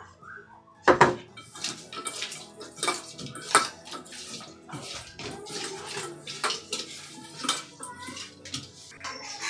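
Hand rubbing puti fish with salt and turmeric in a stainless steel bowl: irregular wet squishing and scraping of the fish against the metal bowl, with a sharper knock about a second in.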